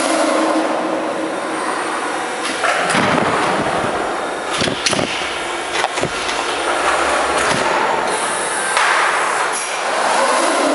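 Giken Eco Cycle mechanical underground bicycle park in operation, its lift carrying a bicycle down the concrete storage shaft: a steady mechanical running noise broken by several sharp clanks and knocks.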